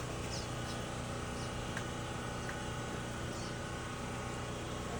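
A steady low hum, with a few faint, short high chirps.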